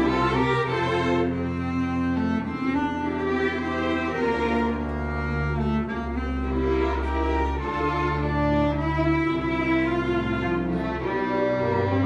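A string ensemble of violins, cello and double bass playing, holding long bowed notes over a low bass line that changes pitch every second or two.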